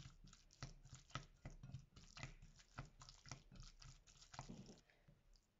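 Faint, irregular soft scraping and squishing of a silicone spatula stirring mashed carrots with spices in a glass bowl, several strokes a second, stopping near the end.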